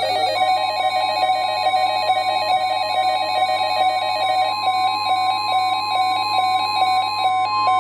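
NOAA Weather Radio warning alarm, a steady tone near 1 kHz, sounding ahead of a severe thunderstorm warning broadcast. It is layered with loud electronic beeping tones that alternate rapidly between pitches in a repeating pattern.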